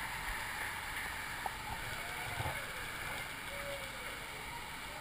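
Water rushing and lapping around an inner tube drifting down a water-park river, with faint voices of other riders in the background.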